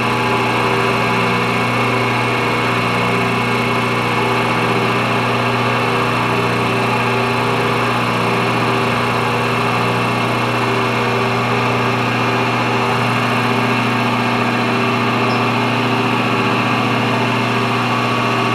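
Grizzly vertical milling machine running steadily, its spindle turning a high-speed-steel end mill that is being fed into the side of an aluminium dirt-bike piston to start a slot. It is an even motor and spindle whine with no change in pitch.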